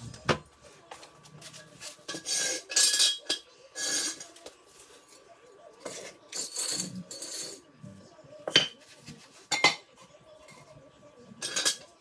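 Steel jack stands being shifted and set under a Jeep frame: irregular metal clanks and clinks with stretches of scraping, a few sharp knocks near the end.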